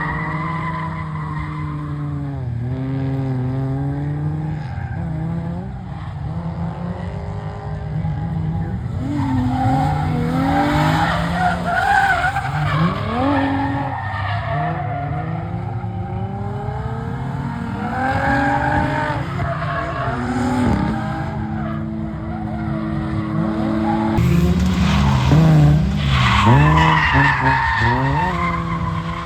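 Drift car engine revving up and down hard, with tires squealing and skidding as the car slides. The sound changes abruptly a few seconds before the end.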